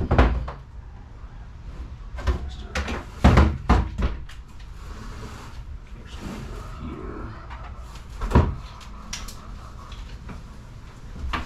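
A series of knocks and clunks from hand tools being handled against plywood in a small enclosed space. There is one knock at the start, a cluster of several about three to four seconds in, and another sharp knock a little past eight seconds.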